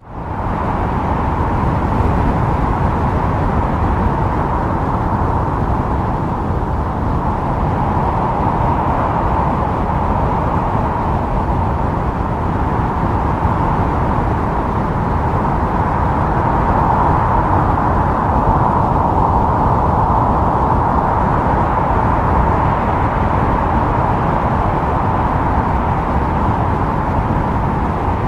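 Wind blowing steadily, a continuous whooshing hiss strongest in the middle range with slow swells, over a low rumble. It fades in at the very start.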